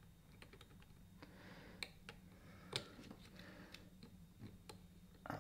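Faint small clicks and taps of a soldering iron and solder wire working on a potentiometer lug, over a low steady hum, with two slightly louder ticks near the middle.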